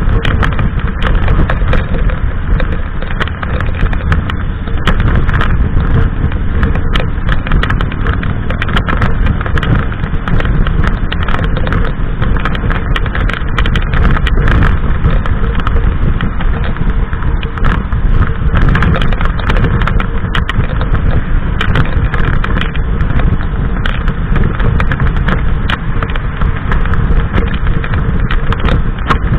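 Harley-Davidson Sportster's V-twin engine running steadily at motorway cruising speed, heavily masked by wind rushing over the microphone.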